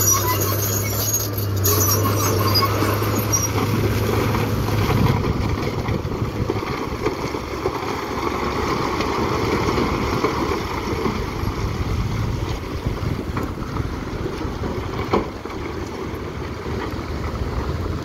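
Dump truck's engine running as its bed tips up, then a load of broken rock sliding out of the bed in a long, rumbling rush. A single sharp knock near the end.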